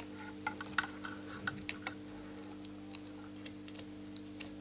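Light clicks and taps of multimeter test probes being handled and set on the component leads of a circuit board: a quick run of small ticks in the first two seconds, then a few scattered ones, over a faint steady hum.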